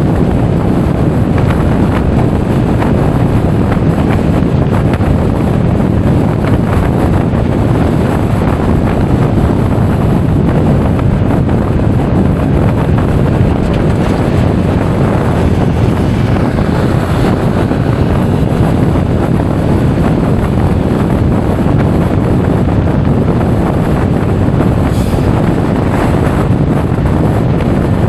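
Steady, loud wind noise buffeting an action camera's microphone while riding a Honda Forza 350 scooter, with the ride's vehicle and road noise underneath.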